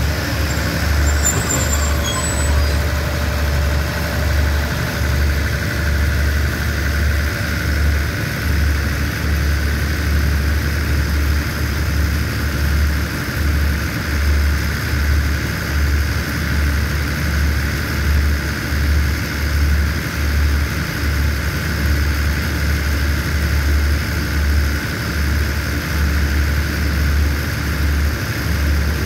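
Diesel engine of a standing passenger train idling: a steady low throbbing drone with a constant higher whine above it.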